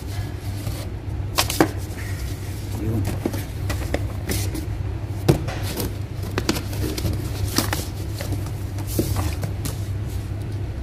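Cardboard box and paper being handled: scattered knocks, scrapes and paper rustles as the packing is rummaged and a printed manual is pulled out, over a steady low hum.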